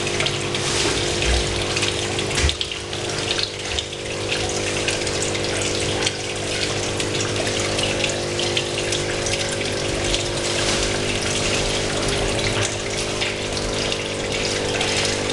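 Aquarium water and bubbles rushing steadily from an air stone and the filter's return, with a steady pump hum underneath.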